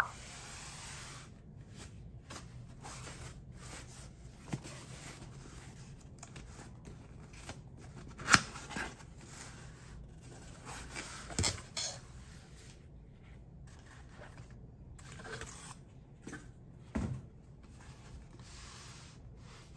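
Cardboard shipping box handled and opened by hand: cardboard rubbing and scraping, with a few sharp taps, the loudest about eight seconds in.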